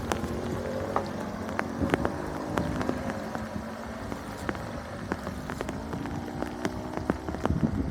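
Water splashing and dripping, with many sharp irregular drips and knocks over a steady wash of water noise.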